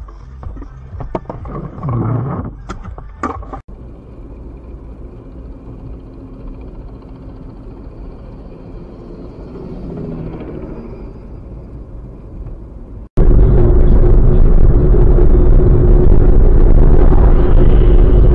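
Irregular knocks and rattles inside a car that has just crashed and stopped, its airbag deployed; then steady road and engine noise inside a moving car, which jumps to a loud steady rumble with a steady hum about thirteen seconds in.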